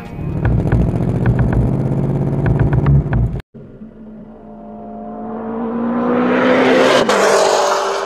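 A car engine running at high revs, cut off abruptly about three and a half seconds in. Then a car approaches, its engine note swelling and dropping in pitch as it passes near the end.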